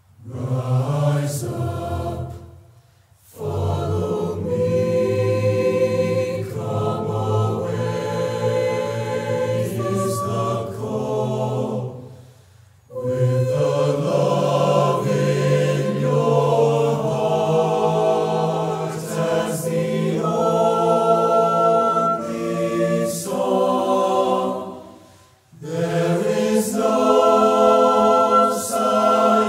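High school mixed choir singing a cappella in long, sustained chordal phrases. The singing breaks off briefly three times, about three seconds in, about thirteen seconds in and near twenty-five seconds, then comes back in.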